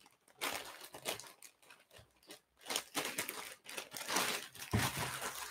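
Clear plastic bag crinkling and rustling as it is handled, in irregular bursts with a brief pause about two seconds in.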